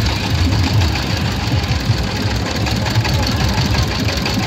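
A boat's engine running steadily with a rapid low chugging.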